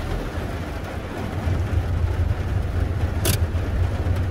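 Tofaş car's engine droning low and steady as heard inside the cabin, under an even hiss. A single brief sharp click sounds about three seconds in.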